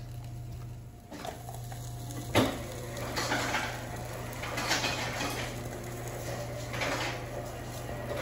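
A sharp knock of kitchen utensils about two and a half seconds in, then chopped mini sweet peppers sizzling in butter and olive oil in a frying pan, with a utensil scraping and stirring them in several swells.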